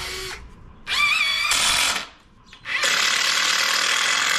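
Cordless drill running under load in a wooden 2x2 frame, in two bursts: a short one about a second in that opens with a rising whine, and a longer one from near the middle to the end.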